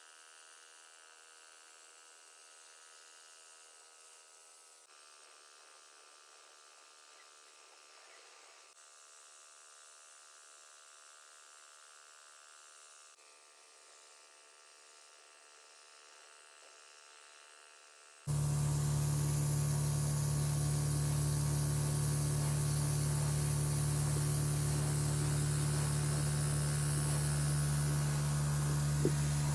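A faint steady hum, then about two thirds of the way in a small electric motor switches on abruptly and runs steadily and loudly, a low hum with a hiss over it.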